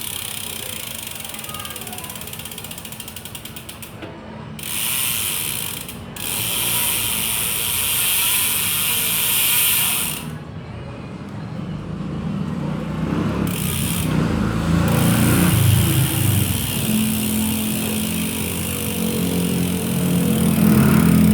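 Speed One Soldier bicycle rear hub freewheeling: a fast, continuous ratchet clicking of the pawls, breaking into two loud high-pitched buzzes a few seconds in as the wheel spins fast. In the second half a low rumble builds and grows louder.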